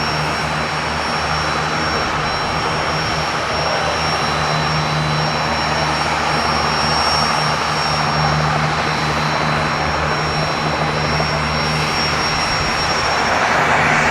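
Aircraft turbine engine running steadily at close range, a high thin whine over a broad engine noise. Near the end the whine drops away and the engine noise swells a little louder.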